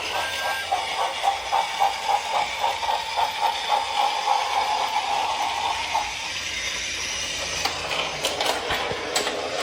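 Battery-powered toy train running along its track: a steady mechanical whir with an even clicking beat, about three or four a second. The clicking stops about six seconds in and the whir carries on.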